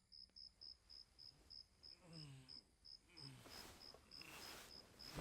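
Crickets chirping steadily, about three or four chirps a second, quiet. A man's faint strained groans come in about two and three seconds in, with a soft rustling noise near the middle.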